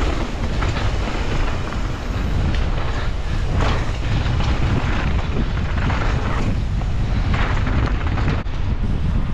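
Mountain bike riding down a dirt trail, heard on a rider-mounted camera: steady wind buffeting on the microphone, with repeated short bursts of tyre noise and knocks as the bike runs over the dry, loose surface.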